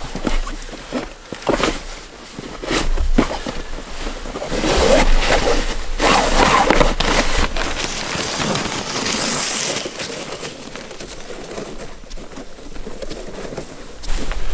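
Handling noise at a dog sled's fabric sled bag: rustling of nylon and a string of short knocks and clicks as gear is packed in and strapped down, growing fainter near the end.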